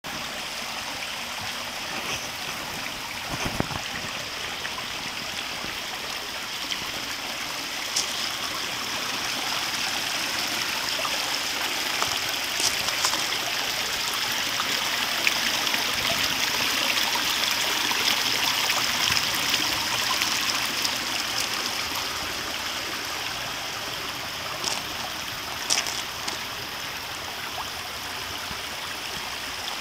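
Water steadily running and splashing into a koi pond, a stream-like rush that swells a little in the middle, with a few short clicks.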